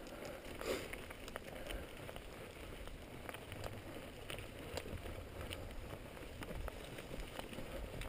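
Mountain bike riding over a dry dirt and gravel singletrack: a steady crunch and hiss of tyres on the trail, with scattered small clicks and rattles from the bike and stones, and one louder knock under a second in.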